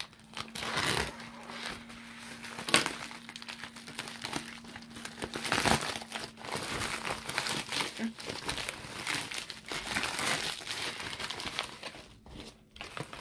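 Shipping mailer and bubble wrap crinkling and crackling as hands tear the mailer open and pull out the wrapped package. There are a few sharper, louder crackles along the way, and the handling dies down near the end.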